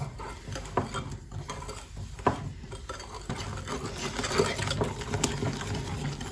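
Wire whisk stirring a thick cake batter in a glass bowl, with irregular scraping and clinks of the metal wires against the glass.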